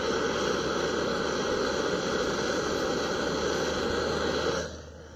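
Cheap gas camping stove burner running with a steady rushing under a steel pot of water coming to the boil. It cuts off suddenly near the end.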